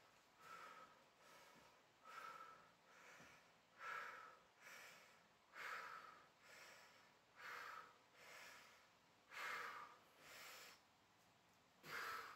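A man breathing hard from the effort of dumbbell preacher curls, in regular pairs: a forceful breath about every two seconds, each followed by a softer one, in time with the reps.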